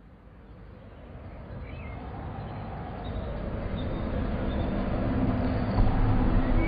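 Street traffic noise fading in steadily from silence, with a few faint bird chirps above it.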